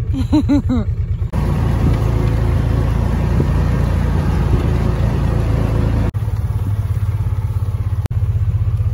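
Small engine of a side-by-side utility vehicle running with a steady low chug. It breaks off abruptly twice, about six and eight seconds in, and carries straight on each time.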